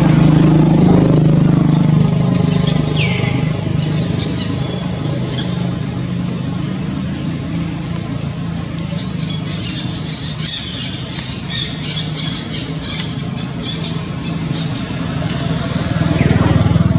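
A motor vehicle's engine drones past, loudest at the start and again near the end. Short high falling squeaks are heard once or twice, and a stretch of rapid high clicking chatter comes in the middle.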